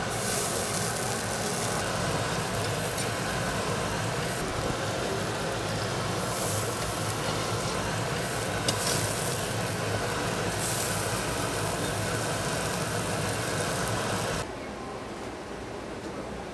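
Steady hiss and hum of tteokgalbi patties grilling over charcoal under a running metal extraction hood, the sizzle brightening now and then. It drops abruptly quieter near the end.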